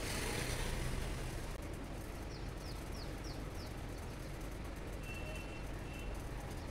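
Steady low background hum and hiss of room and street ambience, with a bird chirping faintly: five quick descending high notes about halfway through and two short even whistles a little later.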